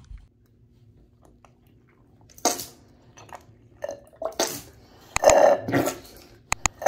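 A person sucking standing water out of a tub filler's valve body through a drinking straw: a series of short wet slurps starting about two and a half seconds in, with a few sharp clicks near the end. The water is being drawn out so the cartridge notches in the valve body can be seen.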